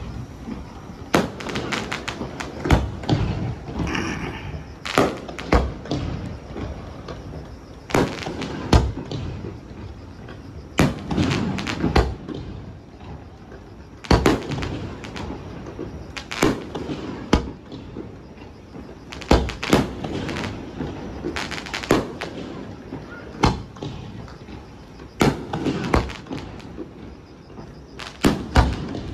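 Aerial firework shells bursting in a display: a long run of sharp bangs, roughly one a second, some in quick pairs.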